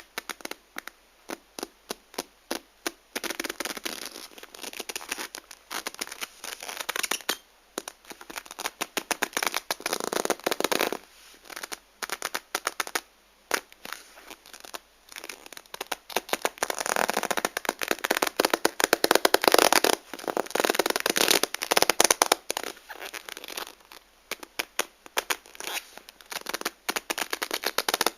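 Black leather glove rubbing and squeaking against a shiny material: quick runs of short squeaks and crackles, with longer, louder stretches of rubbing.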